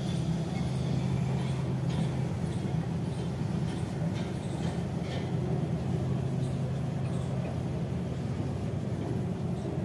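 Steady low mechanical hum, with a few faint clicks over it.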